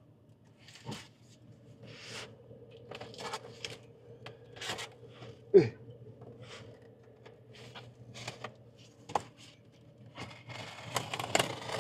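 Box cutter slicing through packing tape and cardboard on a box, a run of short scraping cuts that come thicker and louder near the end, over a steady low hum. About halfway there is a brief, loud sound that falls in pitch.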